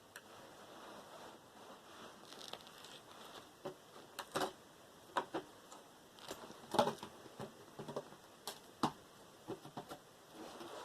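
Irregular light clicks and taps of small metal and plastic computer parts being handled and prized off a motherboard.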